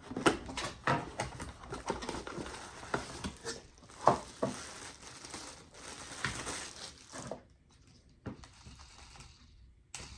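Clicks, knocks and light rattles as a cheap baitcasting reel is handled, followed near the end by a softer, even whir as its handle is turned and the reel spins smoothly.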